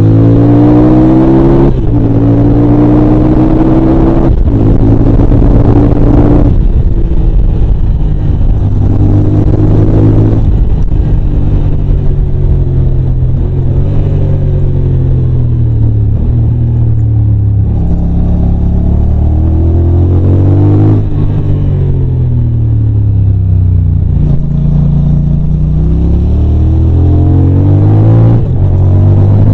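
Yamaha TDM 900's parallel-twin engine heard from on the bike while riding. It pulls up through the gears in the first several seconds, dropping in pitch at each upshift. It then rises and falls with the throttle through the bends, with long stretches of falling pitch as it slows on the engine.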